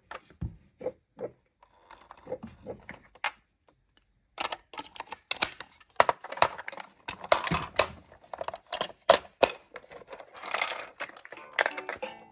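Miniature toy cars clicking and clattering: irregular sharp knocks and rattles, sparse for the first few seconds, then coming thick and fast.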